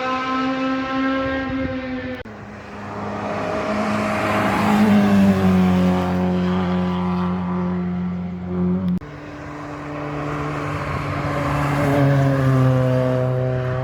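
Historic racing car's engine accelerating hard up the hillclimb, revs climbing and then dropping sharply at two upshifts, about two seconds in and about nine seconds in.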